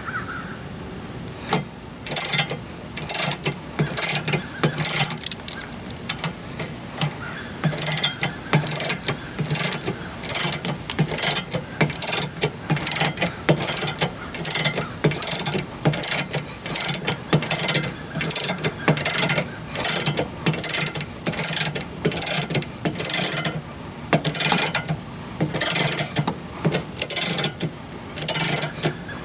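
Ratchet handle on a 2-ton scissor jack clicking over its pawl as it is worked back and forth to turn the jack's screw, in a run of short clicks, one or two a second.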